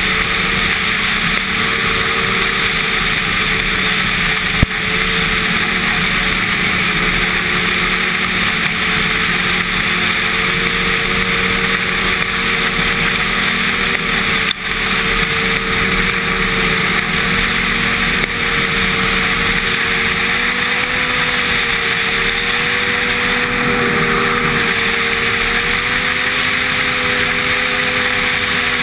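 Snowmobile engine running steadily at trail cruising speed, its pitch wavering slightly with the throttle, over a loud steady rushing hiss. A single sharp click about five seconds in.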